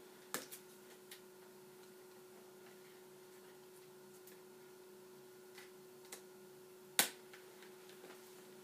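A few faint clicks and one sharper click about seven seconds in from a button accordion being handled and readied, not yet played, over a steady faint hum.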